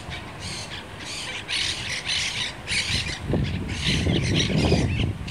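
Monk parakeets giving a rapid series of harsh, grating squawks, about two a second. A low rumble joins about halfway through.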